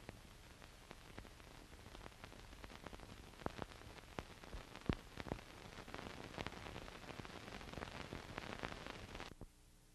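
Faint film-transfer hiss with scattered crackles and pops from dust and scratches, on silent 1944 footage running out into black leader. The pops come thicker from the middle on, then the noise cuts off suddenly near the end, leaving a fainter hiss with a low hum.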